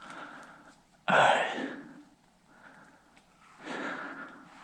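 A man's breathing close to the microphone: two loud, breathy exhales, one sharp-edged about a second in and fading away, another near the end, with softer breaths between.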